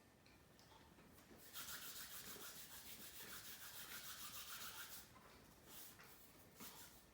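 A faint rasping, rubbing noise with a fine rapid flutter, starting about one and a half seconds in and lasting about three and a half seconds.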